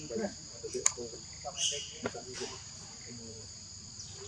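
Insects droning steadily at a high pitch, two even tones held throughout, with scattered short soft sounds underneath and a sharp click about a second in.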